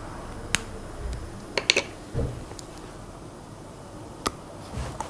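A few small, sharp clicks and soft knocks, spaced apart: a piece of chocolate being picked up off a small plate and bitten into.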